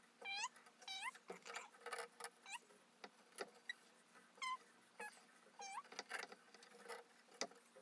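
A small animal's short, squeaky calls that rise at the end, repeating about twice a second, faint, with a few light clicks among them.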